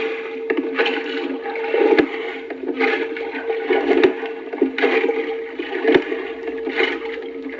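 Rhythmic water sound effect: surges of splashing and rushing about once a second over a steady hum, with a sharp knock every two seconds.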